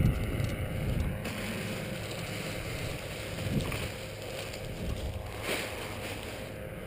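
Wind buffeting the microphone, with the rustle of paraglider wing fabric and lines being handled on the grass; a brief louder swish about five and a half seconds in.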